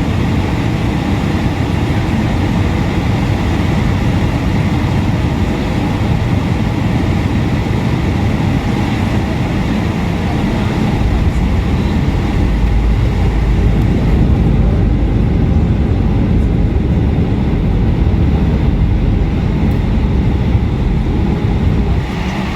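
Airbus A320 cabin noise on arrival: a loud, steady rush of engines and airflow, with a deeper rumble building from about halfway through as the jet comes in to land.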